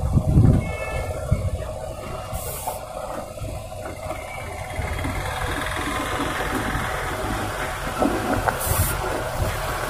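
Diesel engine of a loaded multi-axle BharatBenz truck running as the truck moves slowly closer, growing louder about halfway through. There are two short hisses, one early and one near the end.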